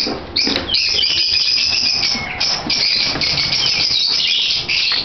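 A colony of lovebirds chattering and shrieking, many shrill calls overlapping almost without a break.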